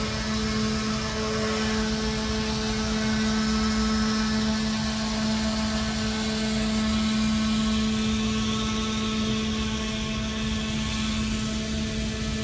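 A motor running steadily with an unbroken low hum.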